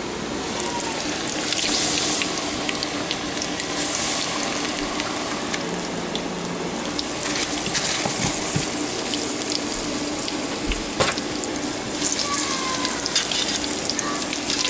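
Battered, bacon-wrapped candy bars deep-frying in a pot of hot grease: a steady, loud sizzle with scattered small pops, swelling louder about two and four seconds in.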